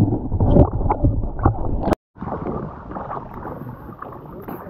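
Water heard through a camera held underwater: loud, muffled low noise with scattered clicks, cut off suddenly about two seconds in. Then a quieter, steady wash of water moving around the camera at the surface of the spring pool.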